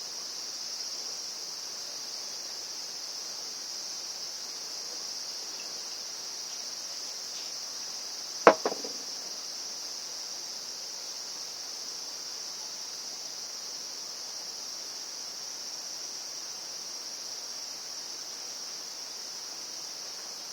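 Steady high-pitched insect chorus throughout, with one sharp knock about eight and a half seconds in and a lighter one just after it.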